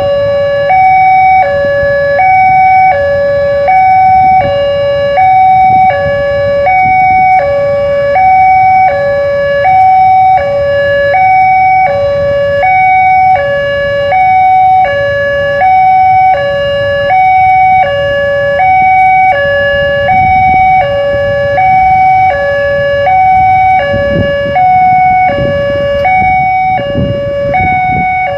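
Railway level-crossing warning alarm sounding its two-tone pattern, a higher and a lower note alternating steadily about once a second, while the barrier is down.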